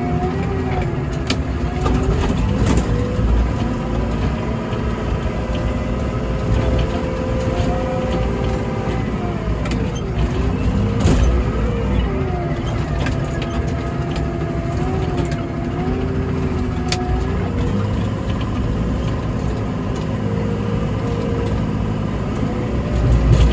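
Komatsu WA100 wheel loader's 4.9-litre diesel engine running under load, heard from the cab. Its pitch rises and falls repeatedly as the revs change while it works the snow.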